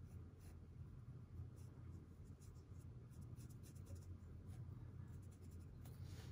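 Faint scratchy swishes of an ink brush pen's bristle tip dragged across roll drawing paper: a run of short strokes, with a longer, fuller stroke about six seconds in. A low steady hum lies underneath.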